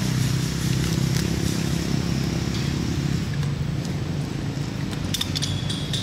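Steady low drone of a running engine, like a motor vehicle idling or running nearby. About five seconds in, a run of short clicks and a thin high tone join it.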